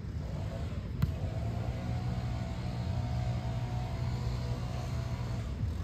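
Wind rumbling steadily on the microphone, with one sharp smack about a second in.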